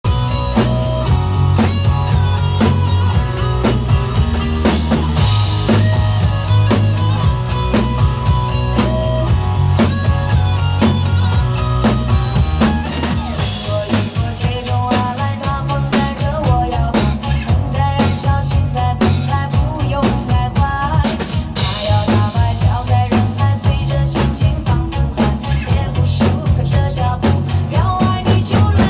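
Two acoustic drum kits played together over a recorded pop backing track, with a driving kick-and-snare beat. Cymbal crashes ring out at about 5, 13 and 22 seconds.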